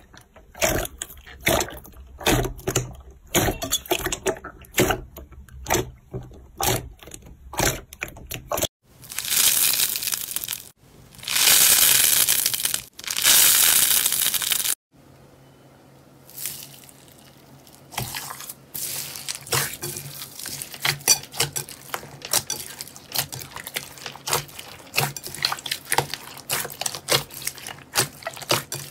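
Hands squishing, pressing and stretching slime: quick wet clicks and pops. About a third of the way through come three loud stretches of hissy crackling, a couple of seconds each, then more rapid sticky pops and clicks.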